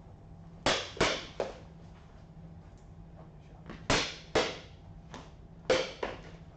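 Wooden practice sticks clacking together in a sparring exchange: a quick run of three clacks about half a second in, two more around four seconds, a lighter one, then two close together near the end, each echoing briefly in a large hall.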